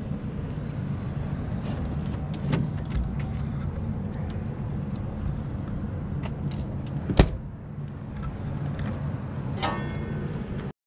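A truck's diesel engine idling steadily, with a few light clicks and one sharp metal bang about seven seconds in as the side storage box door is shut.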